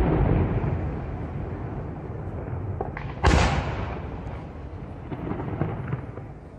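Aerial firework shells: the echoing rumble of a shell burst fades away, then one sharp loud bang about three seconds in, most likely the next shell being fired from its mortar tube, rolls off in echoes. A few faint pops sound in between.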